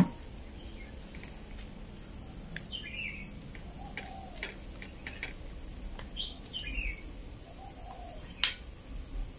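Birds chirping briefly a few times over a steady high insect drone, with a few light clicks and one sharper click near the end.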